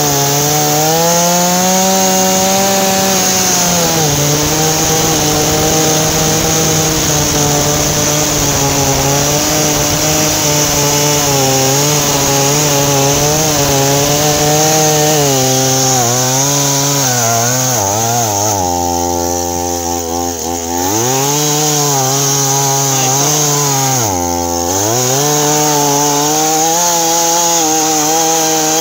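Brand-new Stihl MS170 two-stroke chainsaw running at full throttle while cutting through logs, its engine note sagging a little under load. About two-thirds of the way in it drops to idle for about two seconds, dips again briefly a few seconds later, and revs back up each time.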